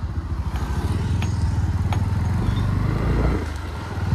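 Motorcycle engine running under way, a steady low throb of firing pulses that dips briefly near the end. A few faint clicks sound in the first half.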